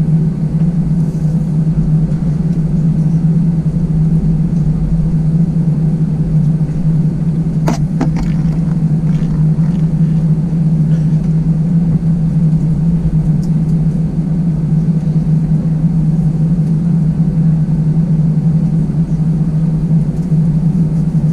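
Steady low drone of an Airbus A320-200 heard from inside the cabin while on the ground after landing, with a constant hum over a low rumble. A single sharp click sounds about eight seconds in.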